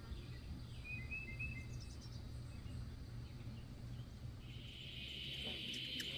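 Outdoor yard ambience with a steady low background hum and a few short bird chirps about a second in. A steady high insect buzz swells in during the second half.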